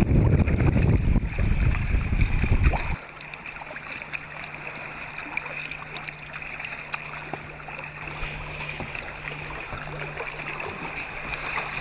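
Wind rumbling on the microphone for about three seconds, cutting off suddenly. After that comes the quiet lapping of calm sea water and drips and small splashes from kayak paddles, with a faint steady hum.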